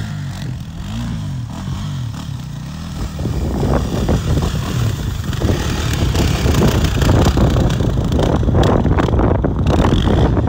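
Dirt bike engines, a Kawasaki KLX300 and a 140cc pit bike, running at low revs with wavering pitch, then revving up and pulling away under load over rough ground about three seconds in, louder and rougher from there on.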